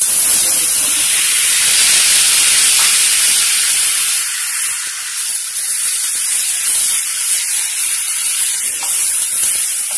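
Chopped tomatoes hitting hot oil and onions in a frying pan and sizzling. The sizzle is loud for the first few seconds, then settles to a softer, steady hiss after about four seconds.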